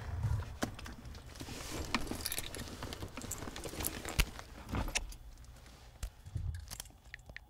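Keys jangling in a hand: a run of irregular small clicks and jingles over a low steady hum, with the sharpest click about four seconds in, growing quieter near the end.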